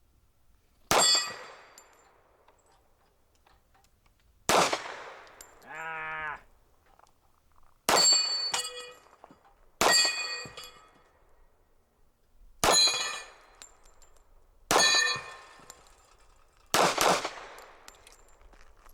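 Seven pistol shots, each ringing a steel plate of a Texas Star spinning target, about two to three and a half seconds apart. A short squeak comes about six seconds in.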